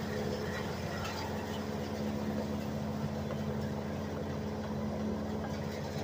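Compact tractor engine running steadily, driving a WM810 hitch-mounted woodchipper that spins empty, with a few light clicks of branches being handled.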